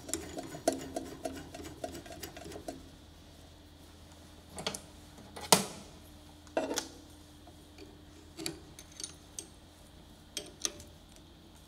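Metal clicks and knocks from handling tools and parts on a drill-milling machine: a quick run of ticks at the start, then scattered sharp knocks, the loudest about halfway through, over a faint steady hum.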